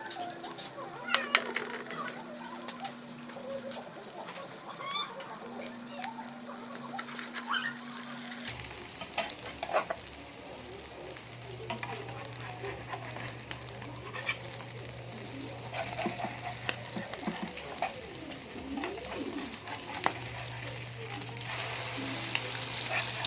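Sardine and egg omelet frying in a hot pan, a steady sizzle broken by the clicks and scrapes of a utensil stirring and turning it.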